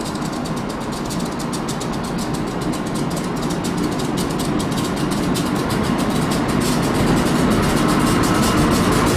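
SEPTA AEM-7 electric locomotive running close by at a station platform: a steady mechanical rumble and fan noise that grows gradually louder.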